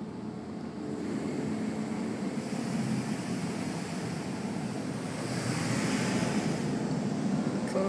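Water spray from a rollover car-wash machine rushing against the car's body and windshield, heard from inside the cabin, growing louder as the spray passes over. A low steady hum runs underneath, and there is a short click near the end.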